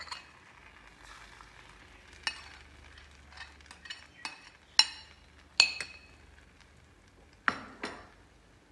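A metal spoon clinking and scraping against a ceramic plate and a nonstick frying pan as egg-and-milk batter is spooned over a slice of French toast, under a faint sizzle of the bread frying. There are a series of sharp clinks: the loudest two, about five and six seconds in, ring briefly, and two more come near the end.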